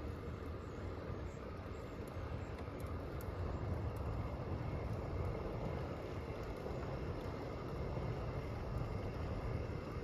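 Steady wind rumble on a body-worn camera's microphone while riding a bicycle.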